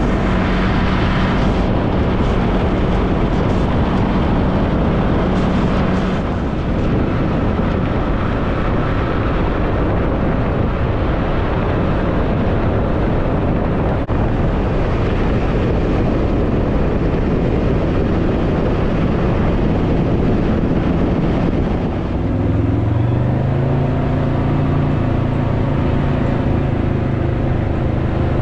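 Motorcycle under way on the road: a steady rush of wind and road noise over the engine's hum. The engine note rises and then settles late on, as the bike accelerates.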